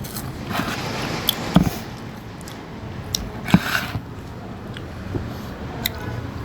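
People eating at close range: chewing and mouth noises, with several sharp clicks and knocks, the loudest about a second and a half in and about three and a half seconds in.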